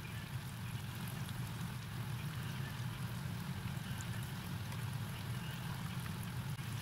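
Tofu cubes deep-frying in hot oil in a wok: a steady sizzle and bubbling with many fine crackles, over a steady low hum.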